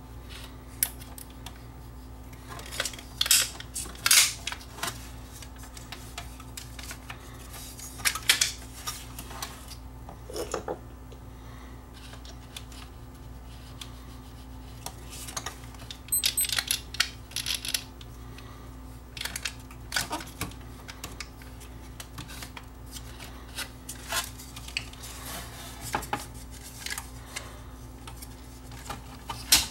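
Irregular clicks, taps and scrapes of hands handling the small plastic parts of a CD player's disc-tray loading mechanism, around its motor pulley and drive belt, over a steady low hum.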